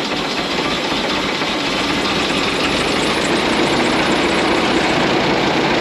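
1927 White dump truck's flathead engine running steadily, a little louder from about three seconds in.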